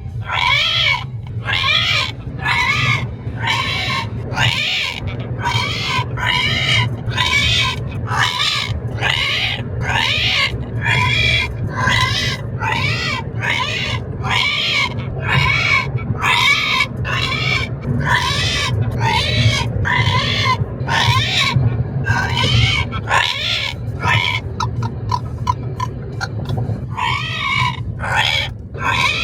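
Pet parrot repeatedly giving a harsh, raspy 'rehhh' call, a little more than one a second, over the steady low road rumble of a moving car.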